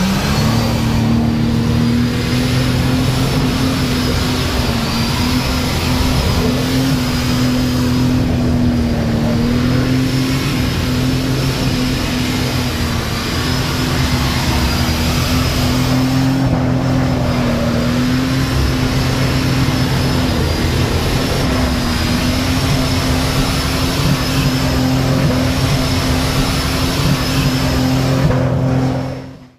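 Modified Jeep Wrangler's engine held at a loud, steady pitch that wavers slightly while it spins donuts in snow, fading out near the end.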